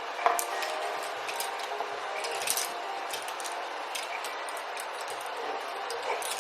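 Scattered light clicks and taps of makeup tools and cosmetic cases being handled, over a steady room hum.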